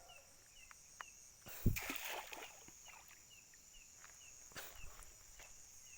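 Night insects chirping steadily, with a short chirp repeating about twice a second. About a second and a half in comes a single thump and a brief rush of noise: a cast net landing on the lake water.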